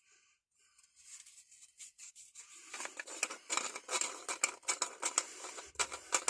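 Rapid scratchy scraping or rubbing strokes made by hand, faint at first and growing much louder and busier about halfway in.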